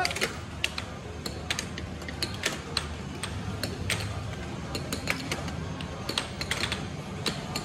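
Air hockey pucks and mallets clacking against each other and the table rails in a fast four-player game with several pucks in play: quick, uneven clacks, several a second, over a steady low hum.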